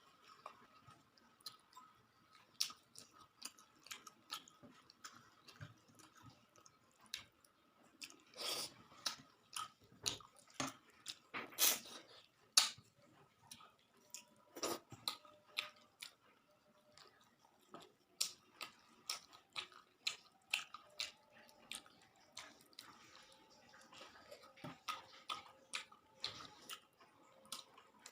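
A person chewing a meal of rice and fish, with irregular wet mouth clicks and smacks, loudest in clusters in the middle and latter part.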